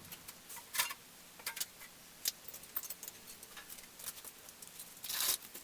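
Scattered light clicks and clinks of small metal parts being handled, with a short rustle near the end.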